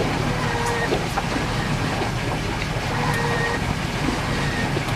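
Boat engine running steadily, a low hum under wind and water noise, with a few faint brief squeaks.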